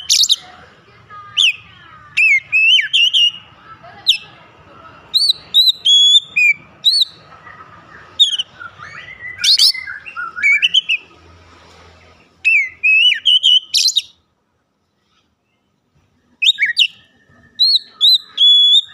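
Oriental magpie-robin singing loudly in short phrases of clear whistled notes that swoop up and down. The song stops dead for about two seconds a little past the middle, then picks up again.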